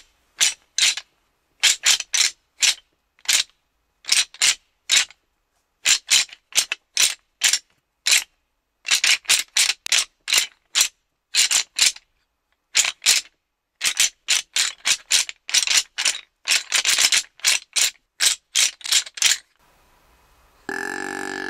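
A deer rattling call being clacked and ground together in irregular runs of sharp clacks with short pauses, imitating two bucks fighting during the rut to draw in deer. Just before the end a deer grunt call begins.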